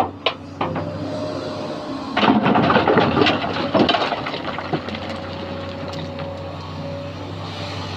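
Sany SY215C excavator's diesel engine running steadily with a high steady whine over it. About two seconds in, a burst of rocks clattering and knocking lasts a second or so, stone being dropped into a dump truck's steel bed, with a few more scattered knocks later.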